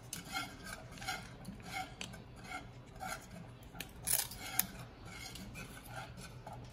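Wire whisk scraping and tapping around a steel pot as it stirs thickening cook-and-serve pudding that is starting to stick on the bottom, in a steady rhythm of about two to three strokes a second. About four seconds in comes a louder scrape followed by a sharp click.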